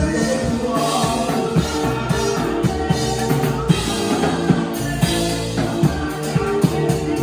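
Live church band music: a drum kit keeps a steady beat over sustained chords.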